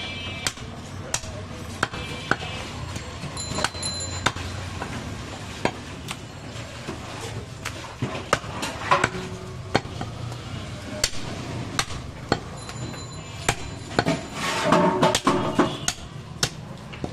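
A butcher's knife knocking on a wooden stump chopping block as goat meat is cut, sharp irregular knocks about once a second over a steady background hum, with a louder, busier stretch a couple of seconds before the end.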